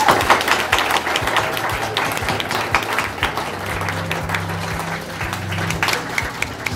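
Guests applauding, dense hand-clapping throughout, with music starting to play underneath about a second in.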